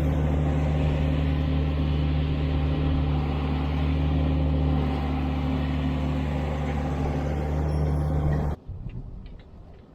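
Tractor engine running at a steady pitch, a deep, even drone that stops abruptly near the end.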